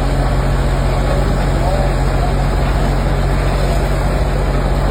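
Heavy engine running steadily with a deep, even hum, mixed with rough wind noise.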